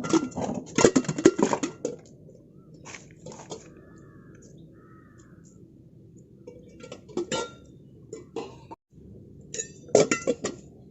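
Ice cubes clattering and clinking against a container as they are knocked out and tipped into an insulated box, in several bursts of sharp knocks separated by quieter pauses.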